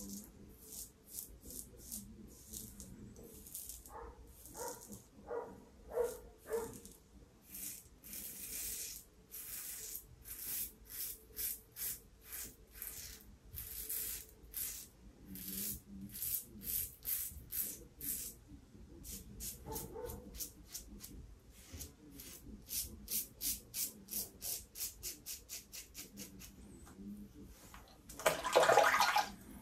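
Closed-comb safety razor, a Yaqi SRC037 cap on a Fatip base with an Astra Stainless blade, scraping through lathered stubble on the face in short rasping strokes, two to three a second, on an against-the-grain pass. Near the end there is a louder burst lasting about a second and a half.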